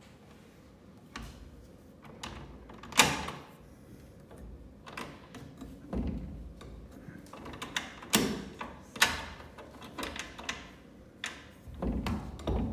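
About a dozen irregular knocks and clicks, some with a dull low thump under them; the sharpest come about three seconds in and about nine seconds in.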